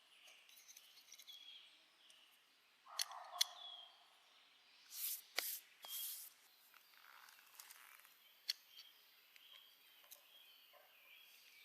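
A small 1960s Hungarian camping espresso set being handled: a few sharp clicks and knocks, then several short scraping, hissing noises about five seconds in. Faint birds chirp throughout.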